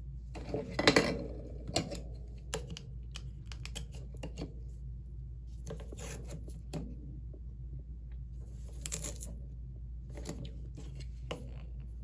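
Washi tape being peeled off its roll and torn, with paper rustling and light taps and clicks of hands and tools on the desk mat, over a steady low hum. The longest scratchy peels come about a second in and again about nine seconds in.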